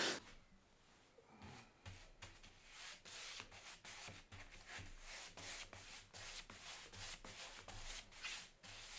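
Black barn paint being brushed onto a wooden door: faint, short rubbing strokes repeating a few times a second, starting about a second and a half in.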